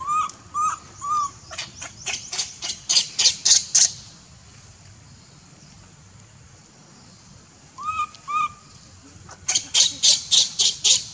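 Baby macaque crying for its mother: three short arched coos, then a run of about ten quick shrill screeches growing louder. After a pause come two more coos and another run of shrill screeches near the end.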